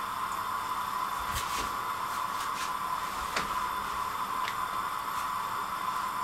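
A few light crinkling taps and rustles as thin samosa pastry sheets are handled and folded into cones, over a steady background hiss.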